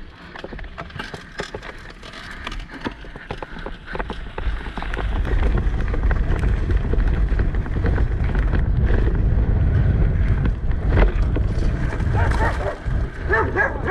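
Downhill mountain bike being ridden, with many short rattles and knocks from the bike and wind buffeting the microphone, which gets heavier about five seconds in.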